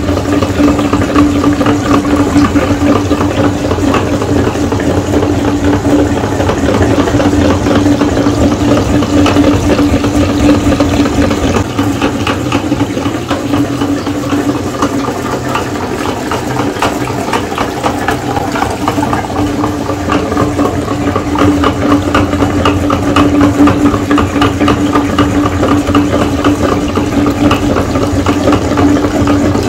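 Electric meat grinder running steadily with a constant motor hum while it grinds jelly, the hum dipping briefly about halfway through.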